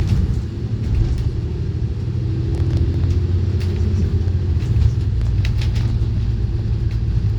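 Steady low rumble of a moving road vehicle, engine and road noise running continuously with no change in pace.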